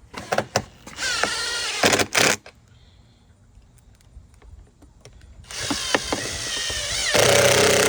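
DeWalt DCF801 12V cordless impact driver driving screws into a mailbox mounting plate, in two runs. The first is short, about a second in, with the motor pitch rising. The second is longer, starts about two seconds before the end, and gets louder in its last part.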